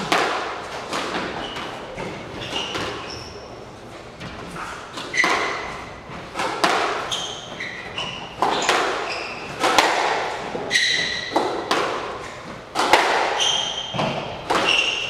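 Squash rally: the ball cracks off rackets and the court walls about once a second, each hit ringing in the hall, with short high squeaks of court shoes on the wooden floor between hits.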